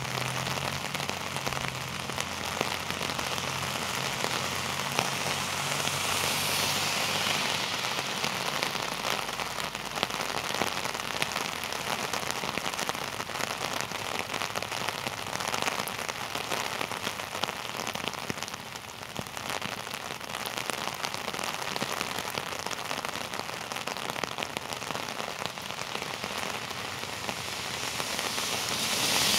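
Heavy rain pouring steadily, with a dense, close patter of drops striking an umbrella overhead.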